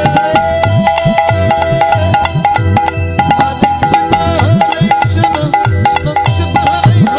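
Devotional kirtan music: a khol drum beating a fast, even rhythm, tambourines jingling, and a keyboard playing a stepping melody.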